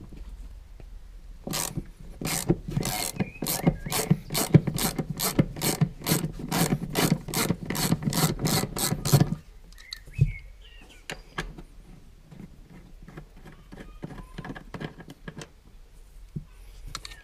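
Hand ratchet wrench clicking as it turns a bolt at a car seat mounting bracket, evenly about three clicks a second for some eight seconds. After that it stops and only fainter, scattered ticks follow.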